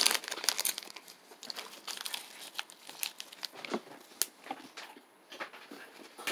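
Plastic granola bar wrapper crinkling as it is handled, a scatter of irregular, fairly quiet crackles.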